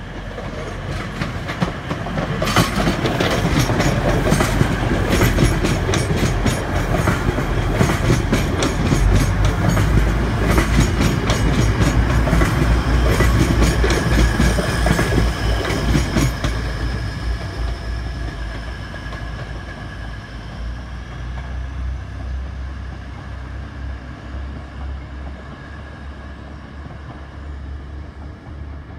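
Grand Central Class 180 diesel multiple unit passing close by. Its wheels clatter rapidly over the track for about fourteen seconds, then the rumble fades away as the train recedes.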